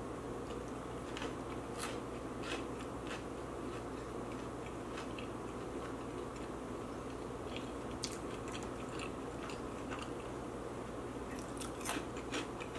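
Chewing with scattered sharp crunches every second or so: someone eating a cream-cheese bagel with crunchy Hot Cheetos.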